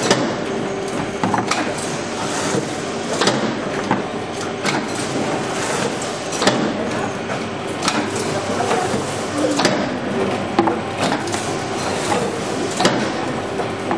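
Packaging machine running, wrapping wooden boxes of cheese in plastic film: a steady mechanical hum with a sharp clack about every one and a half seconds as each box is cycled through.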